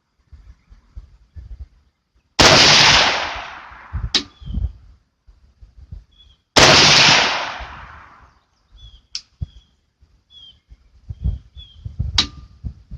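Two rifle shots from an AR-15 chambered in .300 Blackout, about four seconds apart, each with a long echoing decay. A few sharp clicks fall between and after the shots.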